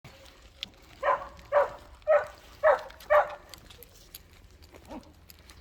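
A dog barking five times in quick succession, about two barks a second, then a fainter single bark near the end.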